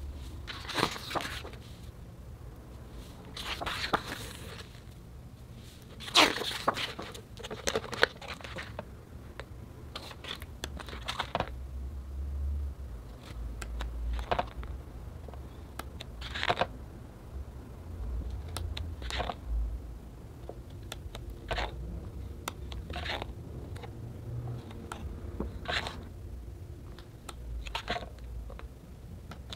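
Pages of a large photobook being turned one after another by hand: short paper swishes and rustles every two to three seconds, with a busier cluster in the first eight seconds.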